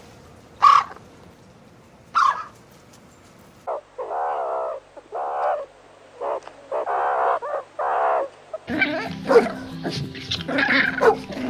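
A dog barking: two short, sharp barks, then a run of five longer barks. Music comes in under the barking near the end.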